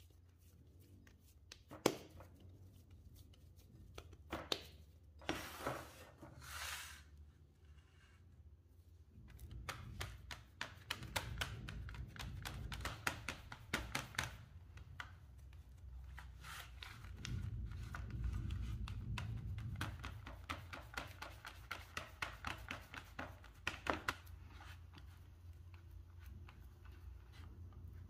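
Kitchen food-preparation sounds: a few separate knocks and short rustling scrapes, then, from about a third of the way in, quick repeated clicking of a utensil against a mixing bowl as ingredients are beaten by hand.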